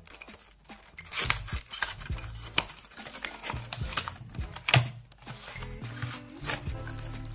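Cardboard earbuds box being handled and opened: scrapes, taps and rustles as the plastic inner tray slides out of the sleeve, over background music.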